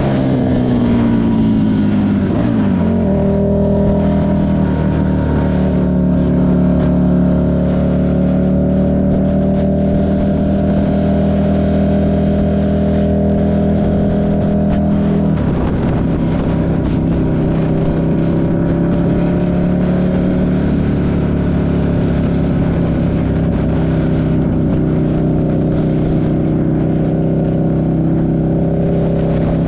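Buell 1125CR's V-twin engine under way, heard from the bike while riding. The engine note falls over the first few seconds as the revs drop, holds steady, drops again about halfway through, then holds steady at cruising revs.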